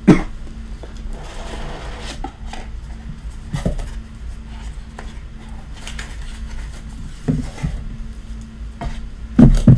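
Hands handling a cardboard trading-card box: the lid lifted off, packaging rustling and the box knocking on the table a few times, with a louder knock near the end. A faint steady hum runs underneath.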